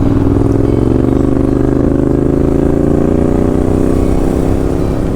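Yamaha Ténéré 700's parallel-twin engine running under load as the bike is ridden, its pitch rising slowly as it gathers speed.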